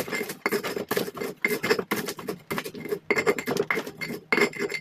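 Stone pestle (ulekan) pounding and grinding fried peanuts, chilli and kencur in a stone mortar (cobek): quick repeated knocks and scrapes of stone on stone, about three a second.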